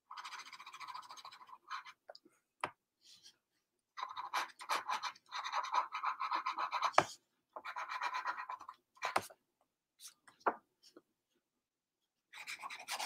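Pencil scratching on sketchbook paper in several bursts of quick, repeated strokes, with a few short sharp clicks between the bursts.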